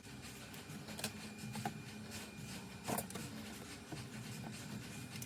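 A few light clicks and taps from handling a smartphone and fitting a replacement LCD panel. The loudest click comes about three seconds in, over a steady low hum.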